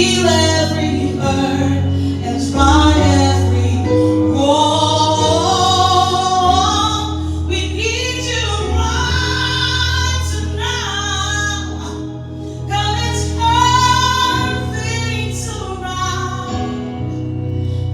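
Gospel song: a woman singing long, gliding melodic lines over held low chords.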